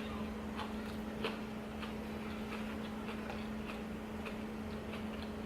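Faint, irregular clicks of someone eating, about one every half second, over a steady low hum in the room.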